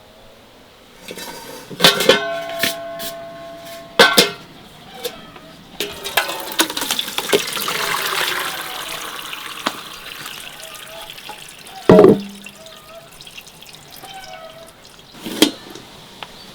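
Kitchenware being handled: several sharp clinks of metal or glass that ring on briefly, the loudest about twelve seconds in, with a stretch of running or pouring water in the middle.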